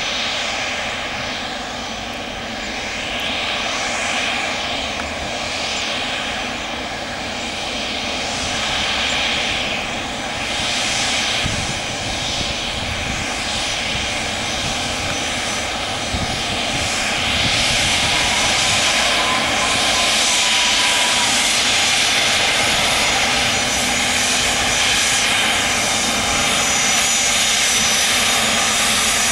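Dassault Falcon 7X business jet's three turbofan engines running: a steady roar with a high thin whine on top, growing louder about seventeen seconds in.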